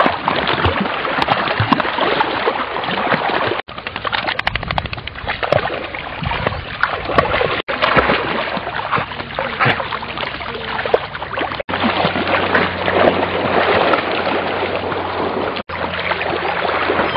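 German Shorthaired Pointer puppies splashing and paddling through shallow water, with continual sloshing and splattering. A low steady hum joins about twelve seconds in.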